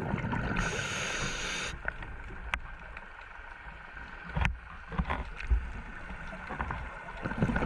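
Underwater noise of a scuba dive: a low bubbling rumble, with a burst of hiss about half a second in that lasts about a second, and a few sharp clicks.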